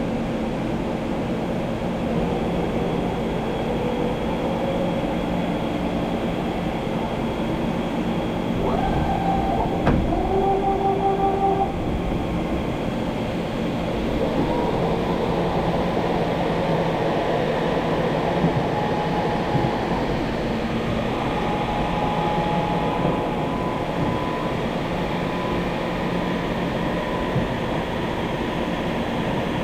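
Industrial machinery running: a steady mechanical rumble and hum, with brief whining tones and a click about ten seconds in.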